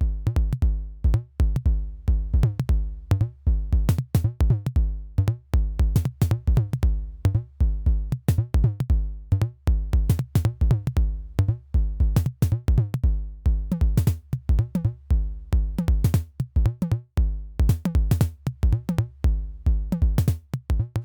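Electronic background music with a drum-machine beat and synthesizer.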